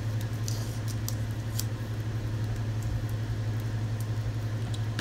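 A steady low hum, with a few faint light ticks and crackles as small strips of masking tape are rolled up and pressed down with the fingers.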